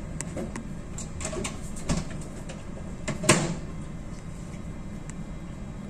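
Steady low hum inside the cabin of a ship under way, with scattered light clicks and two sharper knocks, about two and three and a half seconds in, the second the louder.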